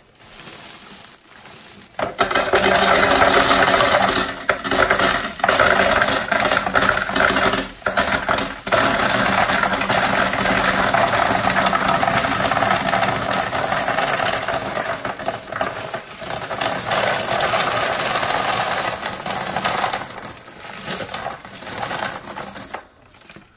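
About 1,300 dirty 9mm brass casings pouring from a plastic bag into the drum of a Frankford Arsenal rotary tumbler: a continuous loud metallic clatter of brass falling on brass, starting about two seconds in, with a few short breaks, and dying away just before the end.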